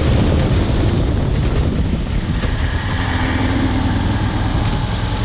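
Volkswagen dune buggy's engine running steadily under way, with a constant low rumble under a broad rush of noise.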